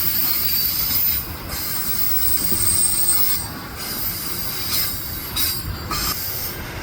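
Loaded grain wagons rolling past on steel rails: a high-pitched wheel squeal over a low rumble, the squeal dropping out briefly several times.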